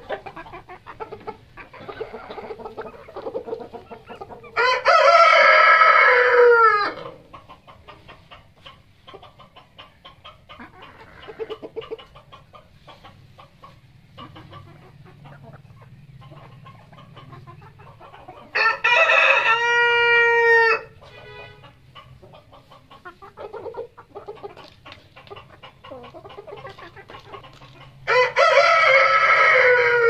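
Rooster crowing three times, each crow about two seconds long, with silkie chickens clucking softly in between.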